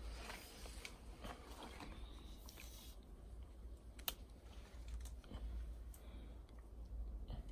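Hands handling small plastic drip-irrigation fittings and tubing at a tap: faint scattered clicks and rustles, with one sharper click about four seconds in.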